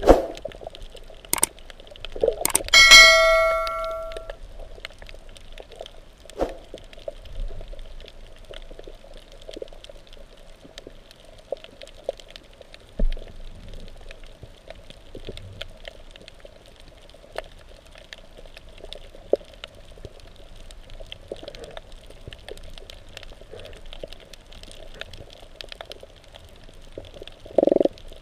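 Muffled underwater reef ambience recorded through a GoPro housing: a steady dull hum with scattered small clicks and crackles. About three seconds in, a single metallic clang rings out for about a second, and there is a short dull burst near the end.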